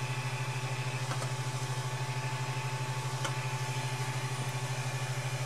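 Steady low hum with a fast, even flutter from the cooling fans of a powered-on Ender 3 Pro 3D printer, with a faint higher whine over it. Two light clicks, about a second in and a little after three seconds, as plastic printed parts are set down on the printer bed.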